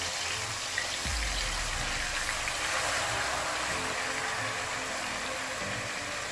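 Marinated chicken pieces sizzling and spattering in hot vegetable oil in a kadai: a steady crackling hiss as they fry.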